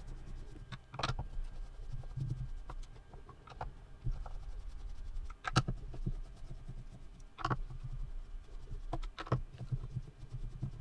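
Scattered light clicks and scrapes of screws being backed out with a small Phillips #1 screwdriver and handled on the plastic front baffle of a Bluetooth speaker, the loudest clicks about five and a half and seven and a half seconds in.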